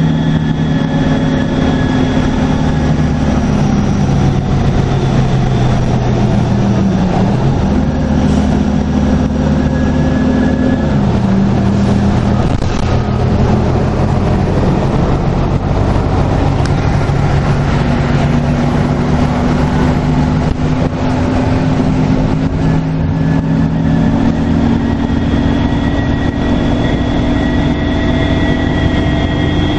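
Detroit Diesel Series 50 diesel engine of a NABI 40LFW transit bus running under load, its note dipping twice in the first dozen seconds and then climbing slowly. A thin, high turbocharger whistle sounds over it at the start and again near the end.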